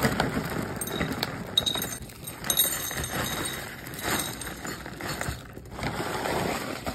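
Dry dog kibble poured from a bag into a ceramic dog bowl, the pellets clattering and clinking against the bowl in a dense rattle, with a few short breaks in the pour.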